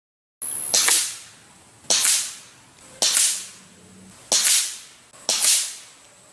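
Five shots from a Sumatra .25 calibre carbine, a pre-charged pneumatic air rifle, about one a second, each a sharp crack with a short fading tail.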